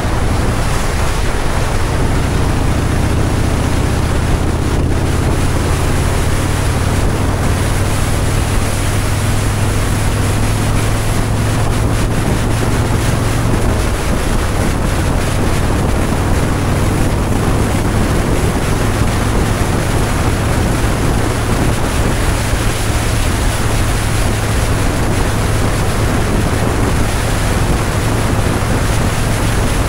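Steady wind noise rushing over the microphone at road speed, with the low drone of a Harley-Davidson V-twin motorcycle engine underneath; the engine note changes about halfway through.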